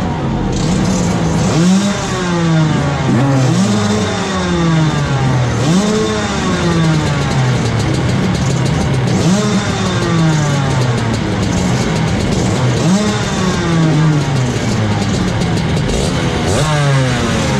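Two-stroke Rotax kart engines running while held stationary, revved in quick blips about every two to four seconds. Each blip jumps up in pitch and sinks back slowly to idle.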